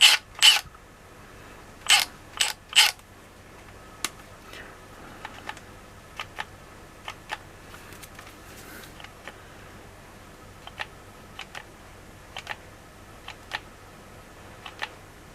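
Sharp clicks from the controls of a Milwaukee M12 FUEL compact impact wrench being pressed to cycle its speed setting, without the motor running: a few loud clicks near the start, then many fainter, irregular clicks.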